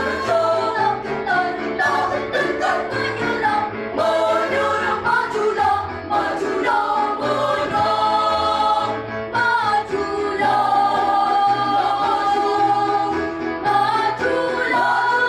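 Children's choir singing a song in several vocal parts at once, with long held notes in the second half.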